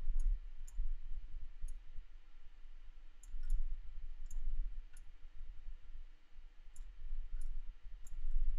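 Computer mouse buttons clicking irregularly, a dozen or so light clicks, over a low steady rumble.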